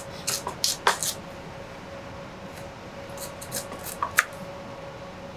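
A chef's knife cutting through heritage carrots and knocking on the chopping board, topping and quartering them lengthwise: a quick run of knocks in the first second, then scattered single knocks, the loudest a little after four seconds.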